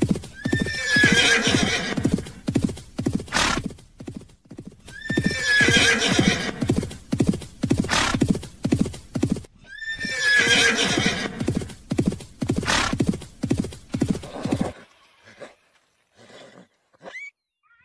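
Horse hooves clip-clopping in a fast, steady clatter, with a horse whinnying three times, each a long call about five seconds apart. The hoofbeats and whinnies stop about three-quarters of the way through, leaving only a few faint clicks.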